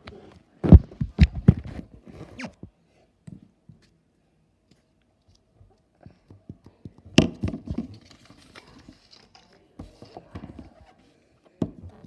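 Handling noise from plastic toys and slime containers being picked up and set down on a table: a quick run of sharp knocks and clatters in the first two seconds, a quiet stretch, then another cluster of knocks and rustling a little past halfway.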